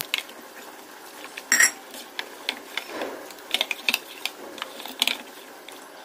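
Metal spoon clinking and scraping against a small bowl as rice flour is stirred into cold water to make a lump-free slurry: irregular light taps, with a sharper clink about one and a half seconds in.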